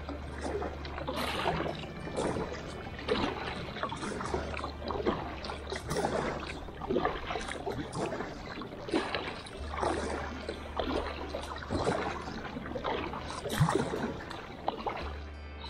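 Kayak paddle strokes splashing in choppy water, about one a second.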